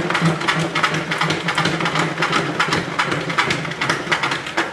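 Salad spinner spinning washed lettuce leaves to throw the water off: a steady whirring hum with rapid clicking, which cuts off near the end.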